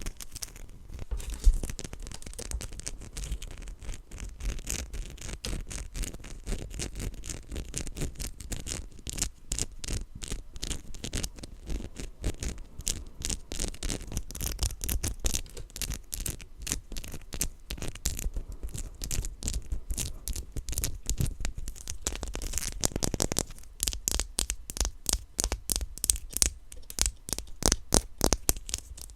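Close-miked hands handling and unwrapping the small plastic pieces and packaging of a blind-box figure's set: a dense run of scratching, crinkling and tapping clicks, thickest in the last few seconds.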